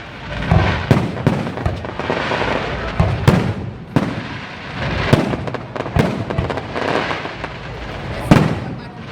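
Fireworks display heard from right beside the launch pad: a rapid, irregular series of about a dozen sharp booms, the loudest near the end, with crackling between them.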